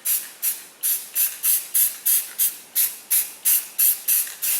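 Aerosol spray-paint can sprayed in rapid short spurts, about three a second, each a sharp hiss that dies away; the can is nearly empty.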